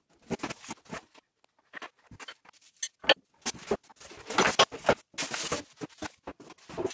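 Cardboard box being pulled open and its packaging handled: irregular rustling and scraping of cardboard and plastic, with short sharp knocks.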